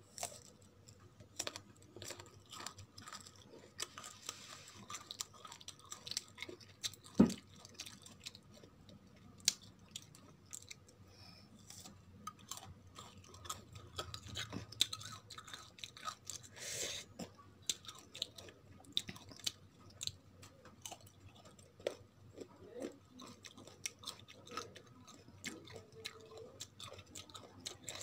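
Close-up crunchy biting and chewing of raw green mango slices, a rapid scatter of wet crunches and mouth clicks. One sharp click about seven seconds in is the loudest.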